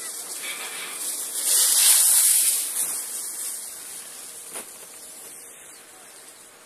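Skis scraping over packed snow as a skier passes close by: a rushing scrape that swells to its loudest about two seconds in, then fades away.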